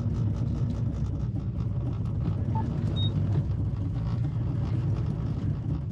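Nissan Armada's 5.6-litre V8 running steadily under load at crawling speed in four-wheel-drive low, with the ABS and brake-based traction control chattering as the tyres lose grip in mud.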